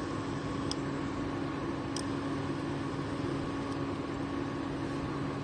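A steady hum with an even hiss, like a running fan or appliance. Two faint ticks about one and two seconds in.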